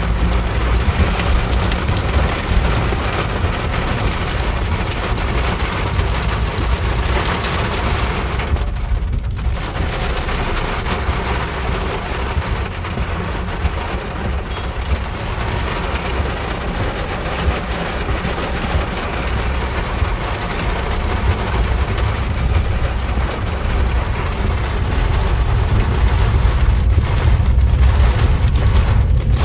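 Heavy rain falling on a moving car's windshield and body, over the low rumble of the car and its tyres on the wet road. There is a brief lull about nine seconds in, and the rain grows louder near the end.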